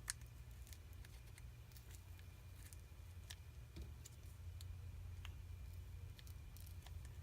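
Plastic prying picks working around a Samsung Galaxy S9's glued-on back glass: faint, scattered small clicks and scrapes, the sharpest one right at the start, over a steady low hum.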